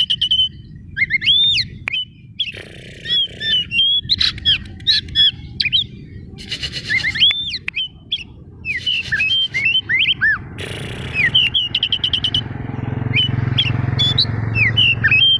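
Oriental magpie-robin (kacer) singing loudly and without pause. Its song mixes clear whistled notes that swoop up and down with quick scratchy, squawking phrases, in the agitated singing that bird keepers call 'emosi'.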